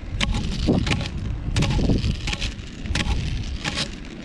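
Wind buffeting the microphone as a steady low rumble, broken by many short clicks and knocks.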